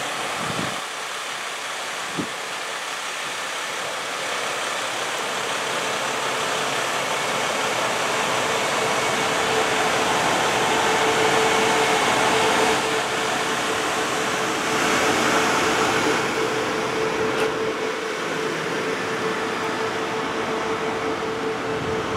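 Steady mechanical whir and rush of air with a steady hum in it, growing somewhat louder in the middle, with a few faint clicks.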